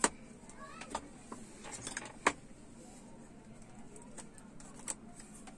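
Sparse small metal clicks and taps as fingers work a clip loose from the TV panel's metal frame, the sharpest about two seconds in.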